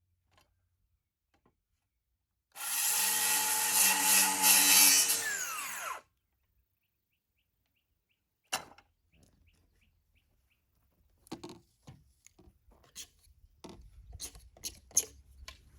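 A power saw runs for about three and a half seconds, cutting PVC drain pipe, then its motor winds down and stops. Afterwards come a sharp click and the clatter of pipe and fittings being handled.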